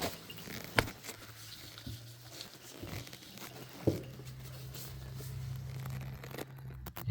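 Faint handling and rustling noises with two light knocks, about a second in and about four seconds in, over a low steady hum.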